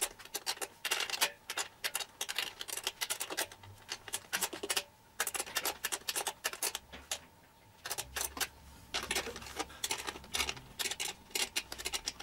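Ratchet wrench clicking in quick runs as the nuts holding the scooter seat are tightened, with brief pauses between runs.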